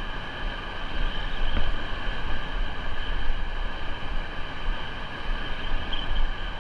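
Steady rush of high water pouring over a dam, with wind buffeting the microphone in a fluctuating low rumble.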